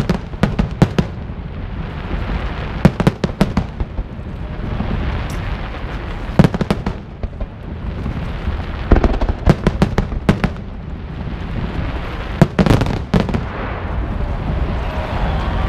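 Fireworks display: aerial shells bursting in sharp bangs, several quick bangs at a time in clusters every three seconds or so, over a steady low rumble.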